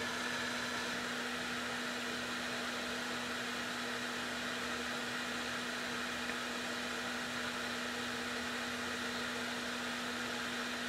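Blower fan in the handpiece of an 858D hot air rework station running steadily with a low hum, in its cool-down cycle after the gun has been docked: the fan keeps blowing until the heating element has cooled.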